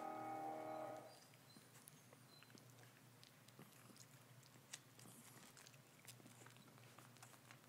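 Background music cuts off about a second in, leaving faint rustling and small wet clicks from three-week-old puppies wrestling and mouthing each other on towels, with a few faint high squeaks early on.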